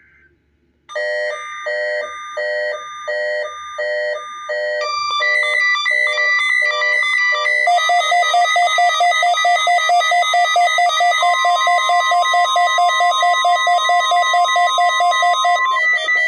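Electronic emergency alert tones. A beeping alarm starts about a second in, pulsing about twice a second, and changes pattern around five seconds in. From about eight seconds a louder, denser alarm pulses rapidly, and a single steady tone, the weather radio's warning alarm tone, sounds beneath it for about five seconds.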